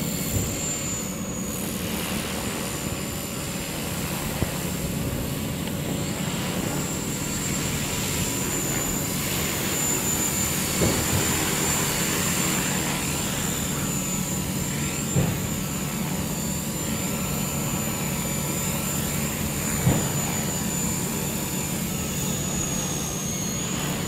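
Walkera V400D02 electric RC helicopter in flight: a high steady motor whine over the hum of the spinning rotor blades, the whine's pitch wavering a little as the throttle changes. A few short sharp knocks are scattered through it.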